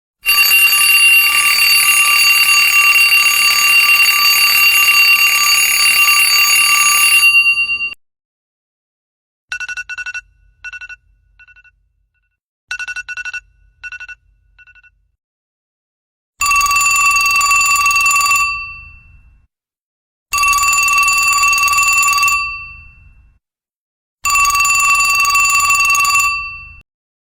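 Alarm ringtone sound effects, telephone-bell-like. A loud, continuous ring lasts about eight seconds and cuts off. Then come two groups of short beeps, then three separate rings of about two to three seconds each that fade away.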